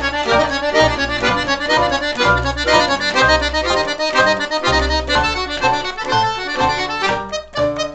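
Paolo Soprani piano accordion played: a melody on the treble keyboard over a steady rhythmic bass from the left-hand buttons, breaking into short detached notes near the end.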